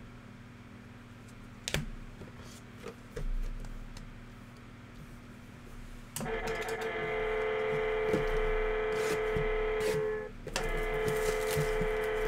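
Trading cards and their box being handled: a few sharp clicks and a knock, then a steady pitched tone, the loudest sound, that cuts out briefly and resumes, with small clicks over it.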